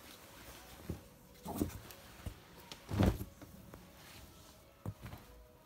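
Fleece zip jackets being handled and turned over, rustling and giving soft thumps in a few separate bursts, the loudest about three seconds in.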